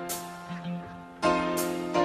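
Instrumental background music of held chords, a new chord struck just past a second in.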